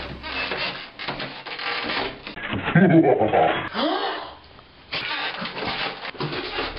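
A person's short, loud vocal outburst about three seconds in, amid rubbing and shuffling noise.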